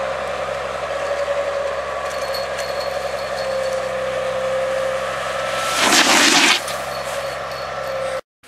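Snowboard sliding over snow under a steady hum, then a loud scraping spray of snow about six seconds in as the board skids to a stop.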